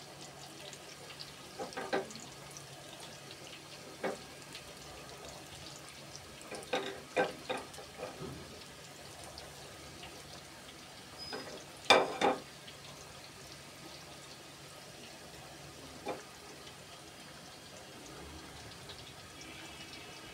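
Battered chicken pakoras deep-frying in a pan of hot oil: a steady bubbling sizzle, broken by several brief sharp knocks, the loudest about twelve seconds in.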